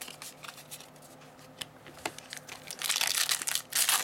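Foil wrapper of a Yu-Gi-Oh! booster pack crinkling loudly as it is torn open, starting about three seconds in. Before that there are a few soft clicks of cards being handled.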